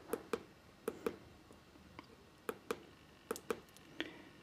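Faint clicks of small tactile pushbuttons on a breadboard being pressed about six times to step through an Arduino LCD menu. Most presses are heard as two quick clicks.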